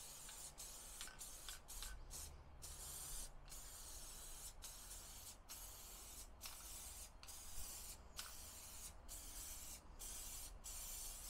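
Loctite spray adhesive hissing faintly from an aerosol can, sprayed in runs of about a second with brief breaks between.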